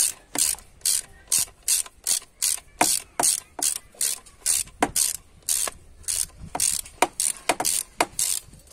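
Hand ratchet wrench on a socket extension swung back and forth in short strokes, about two to three a second, its pawl clicking on each return stroke as it undoes a bolt on the EGR valve.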